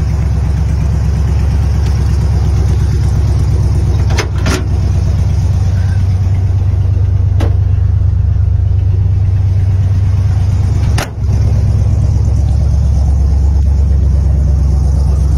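Vehicle engine idling steadily with a low, even rumble. A few sharp clicks cut across it about four, seven and eleven seconds in.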